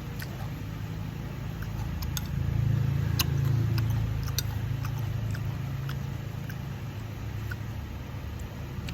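A low, engine-like rumble that swells a couple of seconds in and then slowly eases, with scattered small clicks over it, typical of eating.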